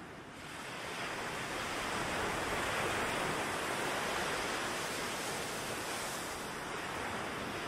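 Ocean surf: a wave swells in about a second in and washes out slowly over the following seconds.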